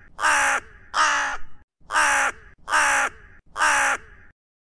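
Rook cawing five times, about a second apart; each caw is harsh and drops in pitch.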